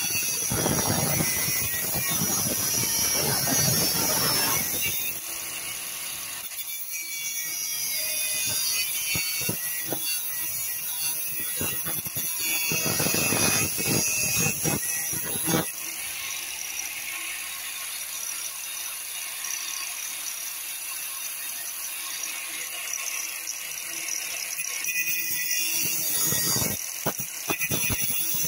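Angle grinder with a thin cutting disc running at speed with a high whine, cutting a shape out of a taped-over letterbox flap. It grates loudly each time the disc bites into the metal: at the start for a few seconds, again about halfway, and near the end.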